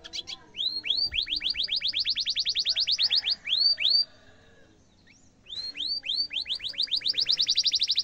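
Domestic canary singing two rapid rolling trills of repeated rising, hooked 'cuit' notes, about ten a second, with a pause of about a second and a half in the middle.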